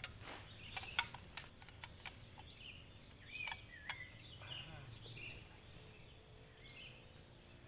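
Light clicks and knocks from an aluminium-plate folding table as it is unfolded and its support set in place, most of them in the first half, with faint birds chirping in the background.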